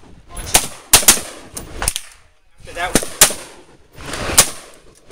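Semi-automatic rifle shots from an AR-15-style rifle in .223/5.56, fired prone: about half a dozen sharp cracks in irregular clusters of one to three, with short gaps between.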